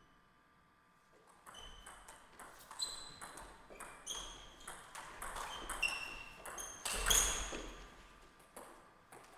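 Table tennis rally: the ball clicking back and forth off paddles and the table, each hit with a brief ring, starting about a second and a half in and getting faster and louder. The loudest hit comes about seven seconds in, followed by a few scattered bounces as the point ends.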